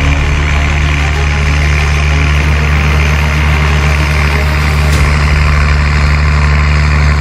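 John Deere 7810 tractor's six-cylinder diesel engine running at a steady, deep, unchanging note as the tractor drives along carrying a mounted planter.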